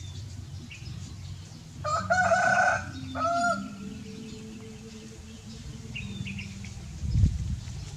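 A rooster crowing: a longer pitched call about two seconds in, then a shorter second note just after. A dull low thump near the end.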